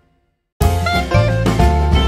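Background music: about half a second of silence, then a bright tune with a heavy bass cuts in suddenly and runs on.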